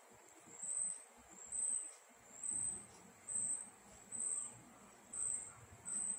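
A short, high-pitched chirp repeating evenly, about once a second, over a faint steady high tone.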